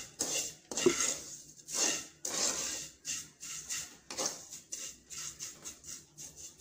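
A wooden spatula stirring and scraping dry-roasted vermicelli around a non-stick kadai, in repeated rasping strokes with a sharper knock about a second in. The strokes get lighter and quicker in the last couple of seconds.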